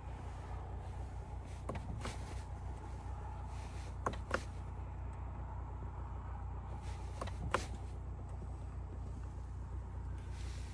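Sharp clicks in pairs, four times a few seconds apart, over a steady low hum.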